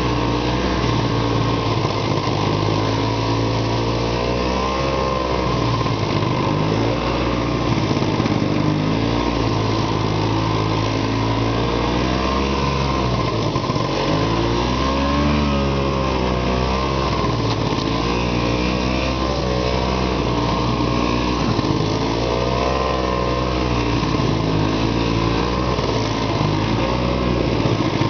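Arctic Cat Panther snowmobile's two-stroke engine running under way through deep snow, its pitch rising and falling several times as the throttle is worked.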